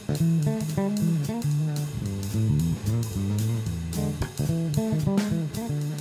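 Background music led by guitar over a bass line, with a steady beat.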